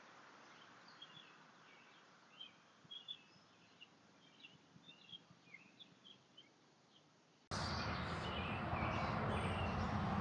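Small birds chirping faintly, many short calls, over a quiet background. About three-quarters of the way in, the sound cuts abruptly to a much louder steady low rumbling noise, with the birds still chirping over it.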